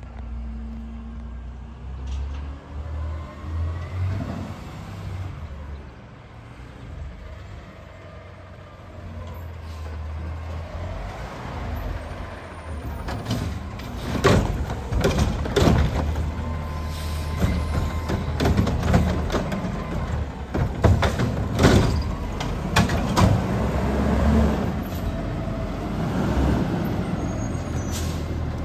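Front-loading garbage truck with a Curotto-Can automated arm: diesel engine running low and steady, with air-brake hisses. From about halfway through there are repeated clanks and bangs as the arm grabs and handles a yard-waste cart. The engine gets louder near the end as the truck pulls away toward the camera.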